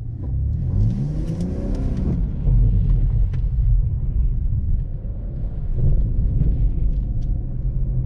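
BMW M340i's turbocharged inline-six pulling through deep snow with a low rumble, its revs climbing twice, with a brief rushing hiss about a second in.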